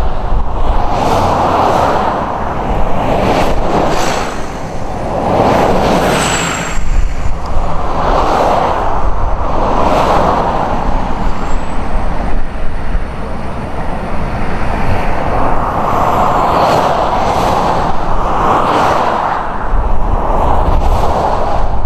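Aerobatic propeller plane's engine, swelling and fading over and over as the plane loops and dives, with short sharp clicks now and then.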